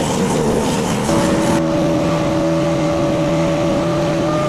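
Mini skid steer's engine running steadily, with a held, even hum that sets in about a second in.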